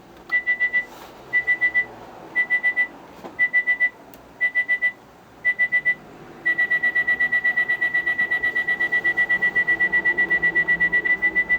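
Electronic alarm clock beeping with one high tone. First come groups of four quick beeps about once a second, then about six seconds in it switches to a continuous fast beeping of roughly nine beeps a second.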